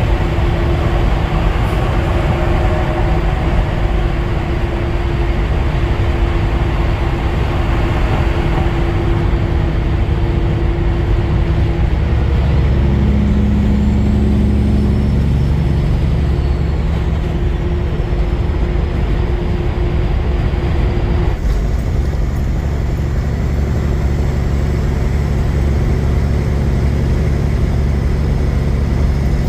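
Semi truck cruising on the highway, heard from the cab: a steady diesel engine drone under tyre and road noise, its engine tones shifting slightly in pitch partway through.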